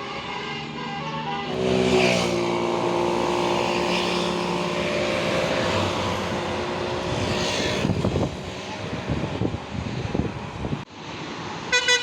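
Bus telolet (basuri) musical horn playing a tune in held, stepping notes over a bus's engine and road noise. The horn notes fade out about seven seconds in, leaving engine rumble. It breaks off abruptly near the end, followed by the first quick notes of another horn tune.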